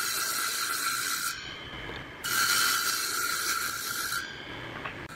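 Table saw blade cutting into the ends of wooden rails pushed along the fence, two cuts of about two seconds each, with the saw running freely between and after them.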